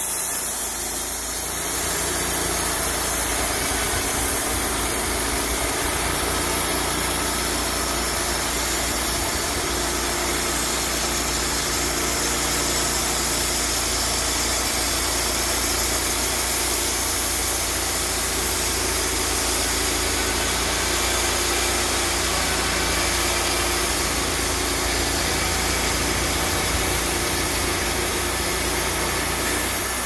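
Engine of a portable band sawmill running steadily, with no change in speed.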